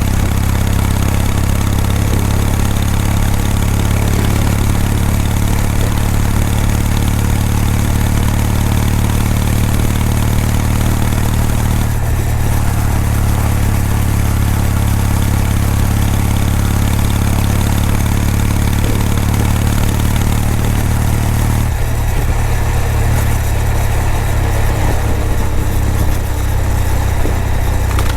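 Exhaust of a Kawasaki W800's air-cooled parallel-twin engine, running at a steady, even note. The note shifts slightly about twelve seconds in and again a little past twenty seconds.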